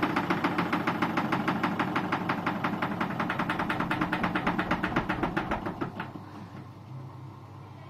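Electrolux 9 kg washing machine spinning down, its drum giving a fast, regular knock that slows and fades as the spin winds down, stopping about six seconds in. A low hum is left after it. The machine is faulty enough that a repairman has been called.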